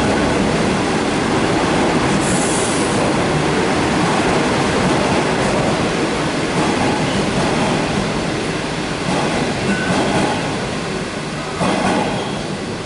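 KTT through train running past, its wheels rumbling and clattering on the rails in a loud, steady noise that eases slightly near the end.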